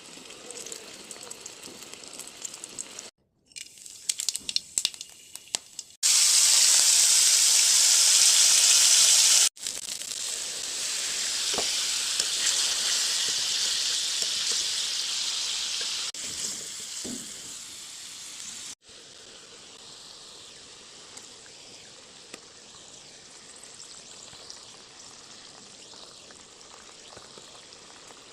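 Food frying in hot oil in a pan, in several short clips: a hiss, some knocks and clatter of utensils, then a loud burst of sizzling about six seconds in that lasts a few seconds, easing into a steady frying hiss that fades and stays low to the end.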